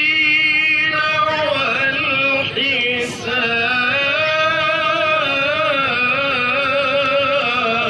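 A male qari reciting the Quran in melodic tilawah style, drawing out long ornamented phrases with a wavering, trilling pitch.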